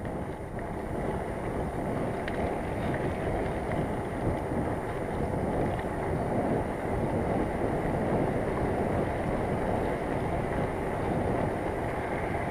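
Steady rumbling noise of a bicycle ride on a rough path: tyre noise with wind on the microphone.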